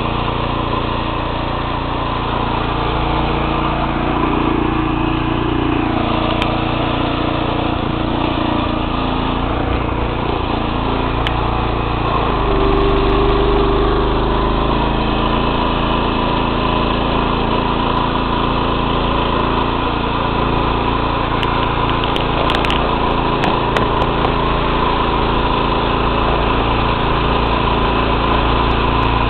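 Small engine of a single-axle walking tractor running steadily under way, growing a little louder about halfway through.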